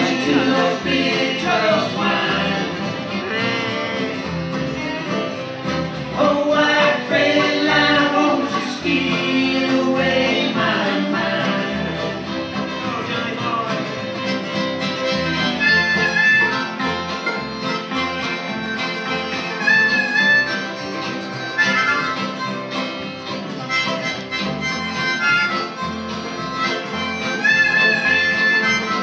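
Live acoustic band playing an instrumental break: harmonica and fiddle carry the lead over strummed acoustic guitars and bass.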